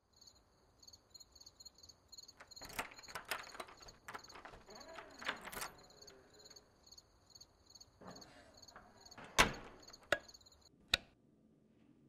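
A door being handled in a dark room: scattered clicks and knocks, the loudest about two thirds of the way through. Behind them runs a fast, even, high-pitched chirping that cuts off suddenly about a second before the end.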